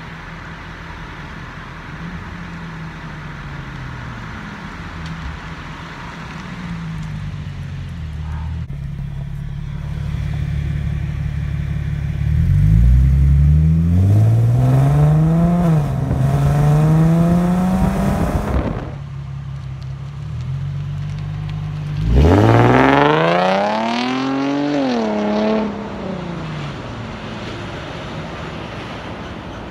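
Modified 2008 Infiniti G37 Coupe's 3.7-litre V6, with high-flow catalytic converters and a Manzo axle-back exhaust, accelerating hard past. After a low, steady run, the revs climb steeply, drop at a gear shift and climb again before cutting off. A few seconds later a second hard pull rises and then falls away.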